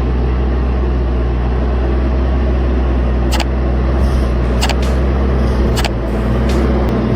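Heavy vehicle engine running steadily with a deep, low hum, broken by a few sharp knocks or clanks about three and a half, four and a half and six seconds in.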